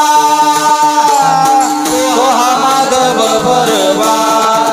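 Marathi Varkari devotional singing: a man's voice holding long, high notes of the abhang over a steady drone, with jingling percussion keeping the beat.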